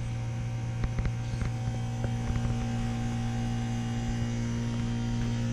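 Geothermal water-to-air heat pump running in heating mode, freshly topped up with R-427A refrigerant: a steady low hum, with a few light clicks about a second in.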